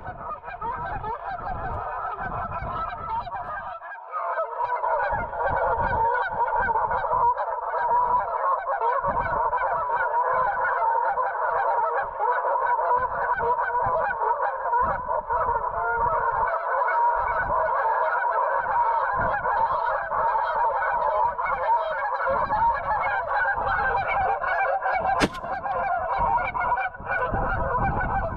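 Geese honking continuously, a dense chorus of many overlapping calls that grows fuller from about four seconds in, with one sharp click near the end.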